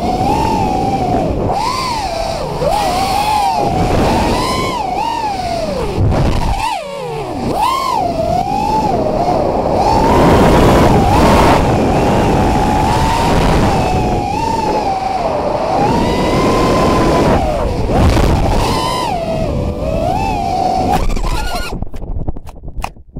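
FPV racing quadcopter's brushless motors and propellers whining, heard from the onboard camera, with the pitch sliding up and down as the throttle changes. Near the end the whine cuts off and a few clicks and crackles follow as the quad comes down in the grass.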